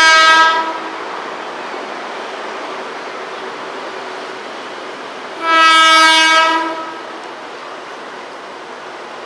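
JR 205 series electric commuter train sounding its horn twice, a short blast that ends under a second in and a longer one about five and a half seconds in, over the steady noise of the train running past on the track.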